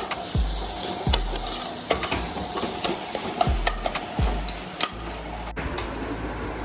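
Onion, garlic and bell peppers frying and sizzling in a pan while being stirred, with repeated clicks and knocks of the spoon against the pan. About five and a half seconds in, the sound changes abruptly to a duller sizzle.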